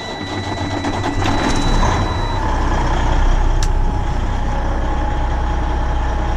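Truck engine starting up and running, with a steady high warning chime sounding for the first second or so. The engine rumble grows heavier about two seconds in and then holds steady.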